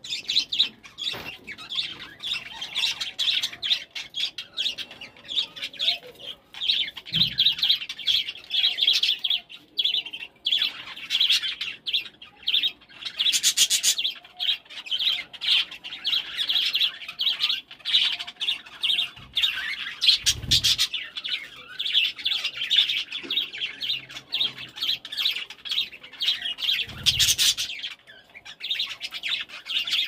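A flock of budgerigars chattering and warbling nonstop in quick, high twittering calls. Three short low thuds sound through it.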